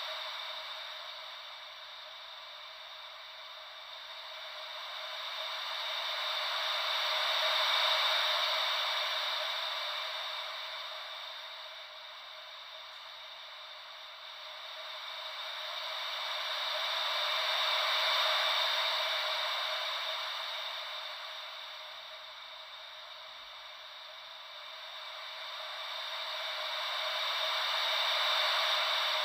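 Wave-like white noise: a hiss with no low rumble that swells and fades smoothly and evenly, cresting about every ten seconds like slow ocean waves.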